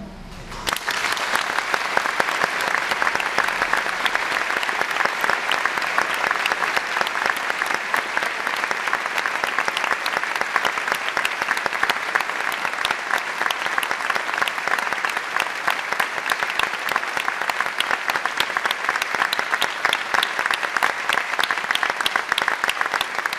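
Theatre audience applauding: dense, steady clapping that breaks out just under a second in as the aria's music ends.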